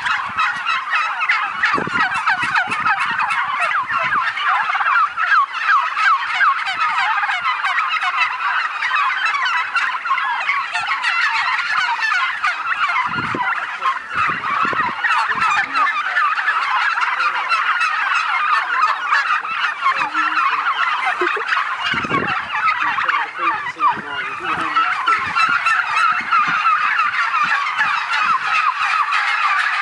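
A large flock of bronze turkeys gobbling and calling over one another in a dense, continuous chorus.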